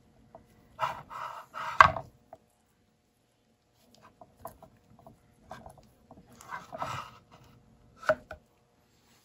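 Clatter of hard tools knocking and scraping on a wooden work board, in two short bursts about a second and six seconds in, with one sharp knock near the end.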